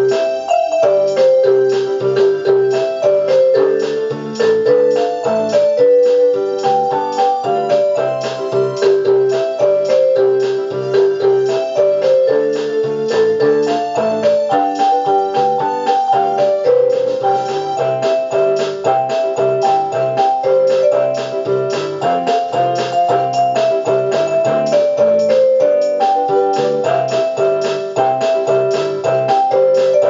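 Casio LK-175 portable keyboard playing a melody of single stepping notes over a lower, steadily repeating accompaniment.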